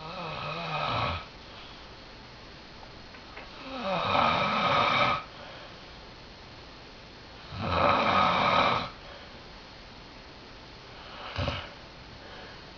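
Snoring: three long snores at a steady pace of about one every three and a half to four seconds, then a short one near the end.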